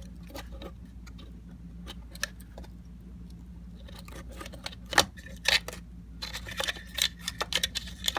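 Small metallic clicks and clinks of a bolt and tool against a string trimmer's muffler as it is being fitted back on, sparse at first with a denser run of clinks near the end.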